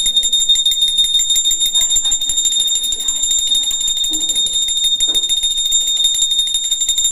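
A puja bell rung rapidly and without pause, a steady high-pitched ringing that pulses with each quick stroke, with faint voices underneath.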